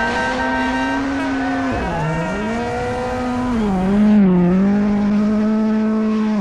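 Rally car engine at high revs, holding a steady pitch that drops briefly and climbs back twice, about two seconds in and again near four seconds, loudest around the second dip.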